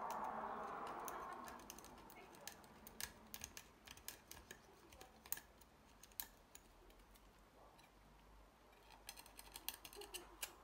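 Pointed metal tool scraping and picking inside an iPhone 11's Lightning charging port, digging out packed pocket lint: faint, irregular little clicks and scrapes, coming more thickly near the end. A soft hiss fades out over the first couple of seconds.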